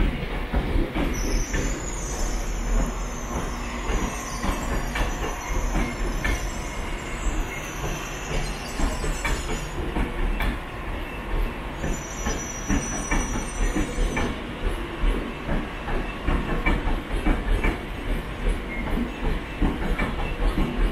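Passenger train moving through the station over pointwork: wheels squeal in high-pitched bouts from about a second in to about nine seconds, and again briefly around twelve to fourteen seconds, over a steady rumble with irregular clicks of wheels crossing rail joints.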